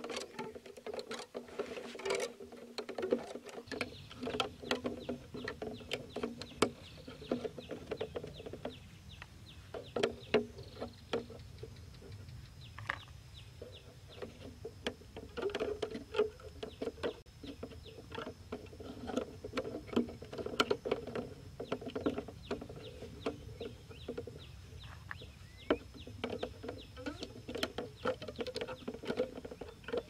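Irregular clicks, taps and small scrapes of hands handling a clear plastic jar and bamboo sticks bound with rubber bands, fitting the parts of a trap together.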